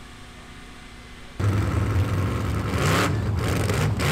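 Jet sprint boat's engine, breathing through open exhaust headers, comes in suddenly loud about a second and a half in and runs with a deep, uneven low note, broken by two brief louder bursts.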